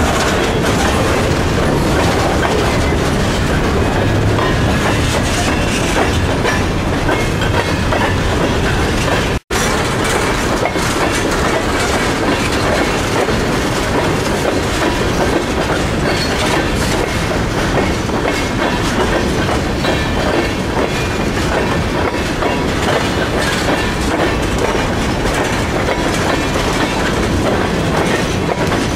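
Freight train cars rolling past at close range: a loaded centerbeam lumber flatcar, then a string of tank cars. The steel wheels rumble and clatter steadily over the rail. The sound cuts out for an instant about nine seconds in.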